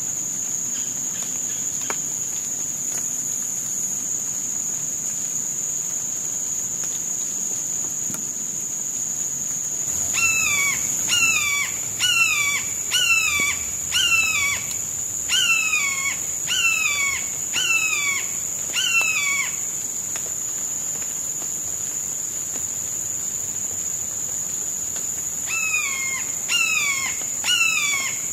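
A red-shouldered hawk calling a run of about a dozen loud, down-slurred kee-ah screams, roughly three every two seconds, starting about a third of the way in, stopping, then starting again near the end. Under it runs a steady high-pitched insect drone.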